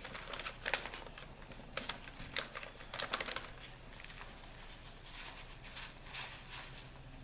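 Dried vegetable mix shaken from a packet into a pot of broth: a scatter of light clicks and ticks over the first few seconds, thinning out to soft rustling.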